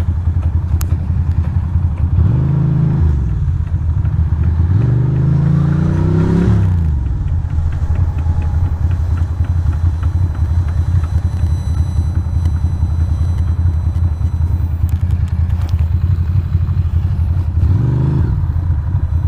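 Ducati Monster's V-twin engine running steadily, revving up and easing off twice in the first seven seconds and once more near the end.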